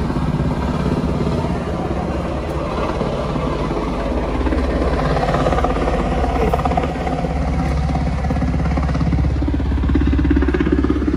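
A steady, loud engine drone with a deep hum, swelling somewhat in the second half.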